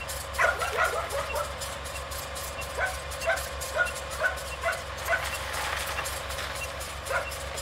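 A dog barking in short, repeated yaps, a quick cluster at first and then about two a second, over a steady low hum and faint crackling clicks.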